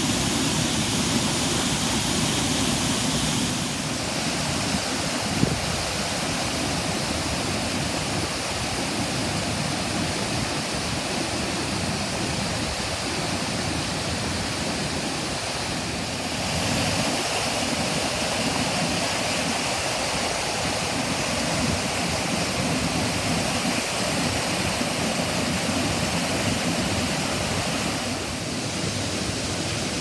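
Mountain stream rushing and splashing over rocks: a steady, full rush of water, its tone shifting slightly about four seconds in and again midway.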